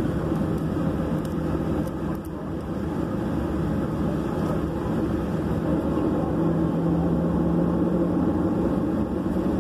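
Cabin noise of a Boeing 737 taxiing: the jet engines and airframe give a steady low hum with a droning tone, a little louder in the last few seconds.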